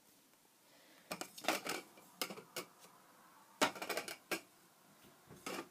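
Louvred window shutter slats clicking and clacking as they are moved by hand, in four short bursts of sharp clicks.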